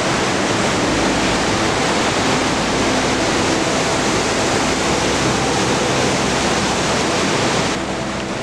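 Forest waterfall pouring, a loud steady rush of falling water. Near the end it turns slightly quieter and duller.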